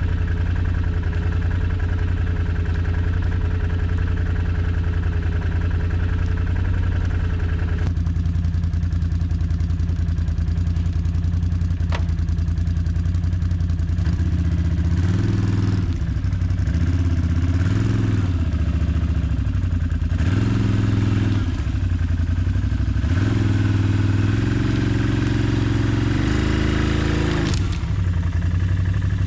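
ATV engine running at a steady idle, then revved up and down repeatedly from about halfway.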